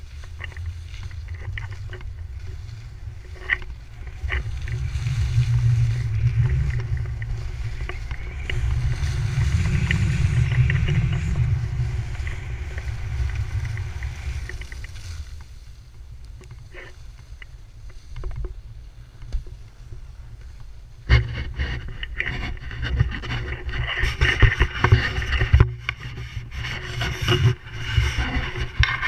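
Skis sliding over groomed snow on a downhill run, with wind rumbling on the action camera's microphone, strongest in the first half. From about 21 seconds in, sharper scraping and a series of knocks.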